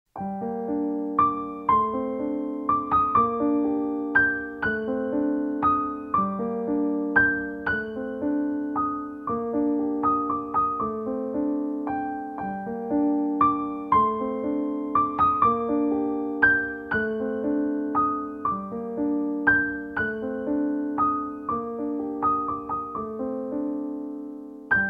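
Background piano music: a slow, gentle melody of single notes that strike and fade, over held lower notes.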